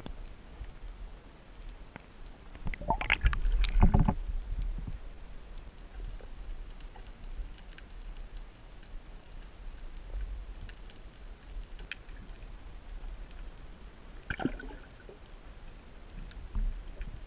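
Water noise picked up by an underwater camera: a steady low rumble, with a louder rush of bubbling about three seconds in and a shorter one near the end.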